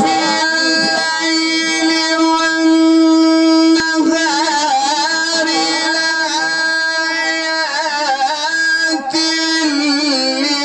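A man reciting the Quran in a melodic, unaccompanied tajweed style, drawing out long vowels in ornamented runs. He holds one steady note from about one to four seconds in.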